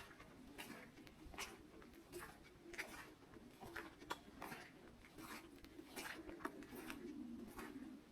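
Footsteps of a person walking slowly along a pine-forest path, faint, about one step every two-thirds of a second.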